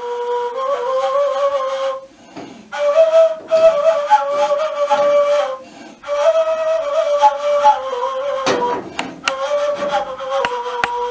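Turkish kaval, an end-blown shepherd's flute, playing a melody in long held notes with small ornaments, with two short pauses between phrases.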